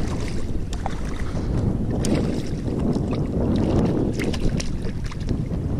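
Wind buffeting the microphone over water lapping against the kayak hull, with scattered small splashes and clicks.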